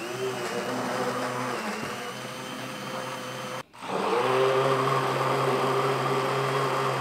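Handheld stainless-steel immersion blender running steadily in a glass measuring jug, blending coffee, milk and avocado. It cuts out suddenly a little past halfway, then starts again with a short rising whine and runs slightly louder.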